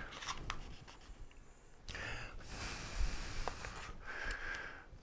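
A man blowing on freshly super-glued plastic to help the glue set: breathy puffs of air, the longest lasting about two seconds near the middle, with a shorter blow near the end.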